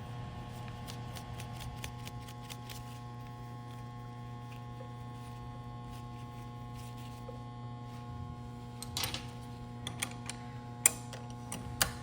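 Pump parts and hand tools being handled during reassembly of a metering pump: scattered light clicks and, near the end, a few sharp knocks, over a steady electrical hum.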